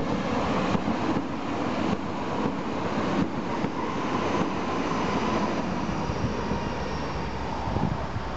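Stuttgart Stadtbahn DT8 light-rail train of two coupled double units passing close by. Its wheels click sharply over the rail joints several times in the first few seconds, then the train runs away with a steady hum.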